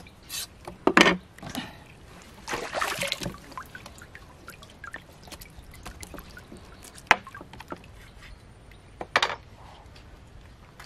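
Wet hand-scrubbing of a whole pangasius catfish on bamboo slats, rubbed with alum to strip its slime: a short scrubbing stretch and trickling, dripping water, with a few sharp knocks, the loudest about a second in.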